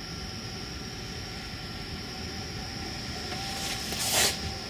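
Steady background hiss with a faint high whine, and one short swish a little after four seconds in.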